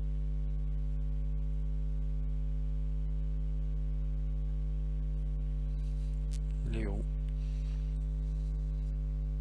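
Steady electrical mains hum, a low drone with a stack of overtones. A brief voiced sound from a person comes about two-thirds of the way through.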